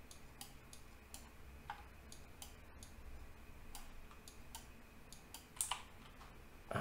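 Faint, irregular clicks of a computer mouse, with a louder one near the end.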